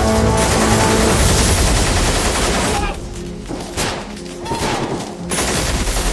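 Film gunfire sound effects: a dense volley of rapid shots that drops back for about two and a half seconds in the middle before another burst near the end, with soundtrack music underneath.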